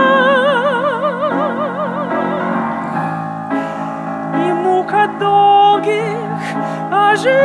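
A singing voice holds one long note with wide, operatic vibrato for about two and a half seconds over instrumental accompaniment. The melody then moves on in shorter notes.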